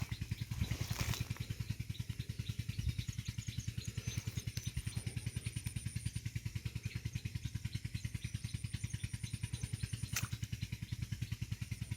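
A small engine running steadily, with a rapid, even chugging. A single sharp click comes about ten seconds in.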